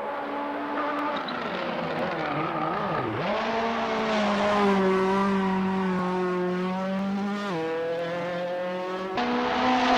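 Race car engine running hard on a circuit. Its note dips and recovers about three seconds in, holds steady, steps down sharply about seven and a half seconds in, then jumps and climbs near the end.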